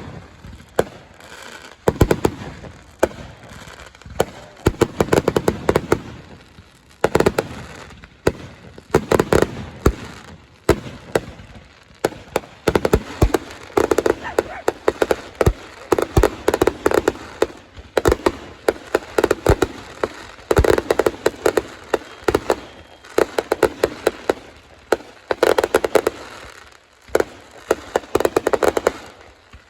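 Fireworks finale: a continuous barrage of rapid cracks and bangs from aerial shells going off in quick clusters.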